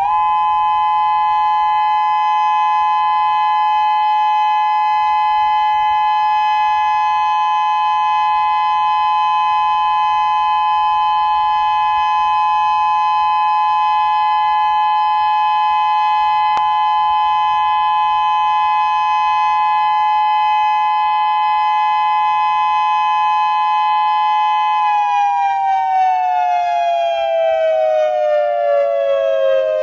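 Outdoor warning siren sounding a steady two-tone alert in a test of the outdoor warning system, then winding down, its pitch falling steadily, for about the last five seconds.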